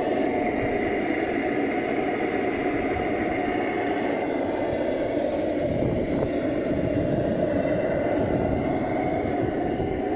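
Lanz Bulldog's single-cylinder hot-bulb two-stroke engine running steadily at idle.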